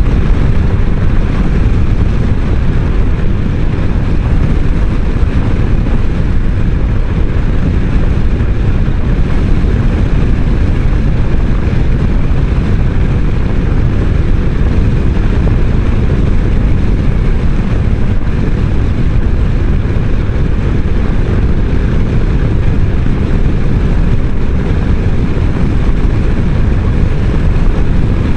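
Steady wind rumble and road noise on the microphone while riding a Kymco Xciting 500 maxi-scooter at speed, loud and unchanging.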